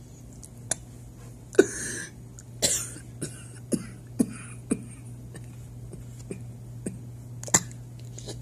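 A person coughing: a string of about nine or ten short, sharp coughs at irregular intervals, the loudest about one and a half seconds in and near the end.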